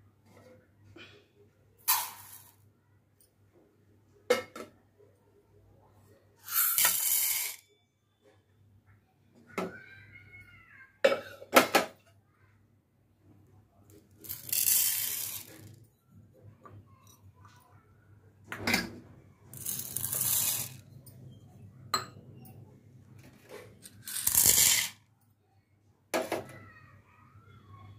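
Dry rice, lentils and beans poured into a ceramic bowl about five times, each pour a second or two of rattling rush, with a few sharp clicks against the bowl in between.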